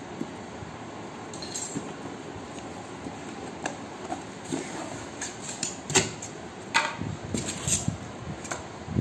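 Cardboard shipping box being opened by hand: flaps pulled back and handled, with scraping and rustling of cardboard and packing and a few sharper knocks, growing busier after the first few seconds. A steady low noise underlies it.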